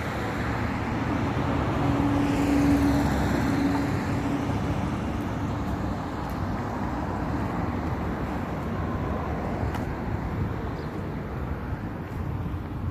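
Road traffic: a car passes by, loudest about two to three seconds in, then a steady hum of traffic noise.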